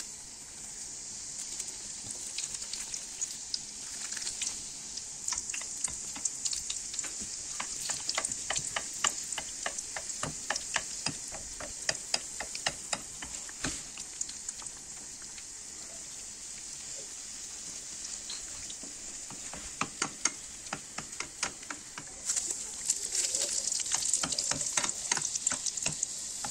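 Beignet dough deep-frying in hot oil in a pan: a steady sizzle full of crackling pops. It grows louder and busier near the end, as hot oil is spooned over the tops of the dough to puff them.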